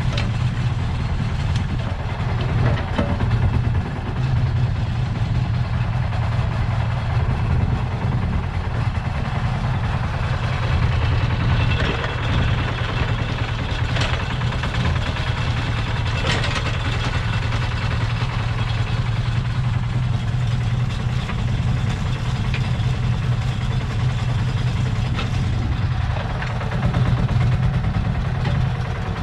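The 1979 Smalley 5 mini digger's Lister SR1 single-cylinder diesel engine running steadily as the digger works its arm and bucket. A few sharp clanks come near the middle as the bucket swings out over the spoil heap.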